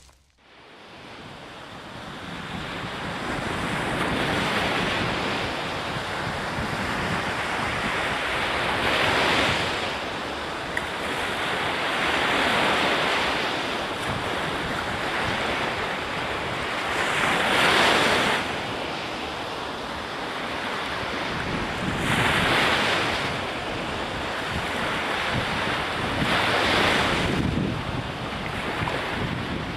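Sea waves washing in, a steady rush that fades in at the start and swells every four or five seconds as each wave breaks.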